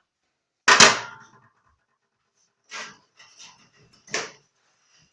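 A sharp kitchen clatter about a second in, then several short breathy puffs of a person's breath.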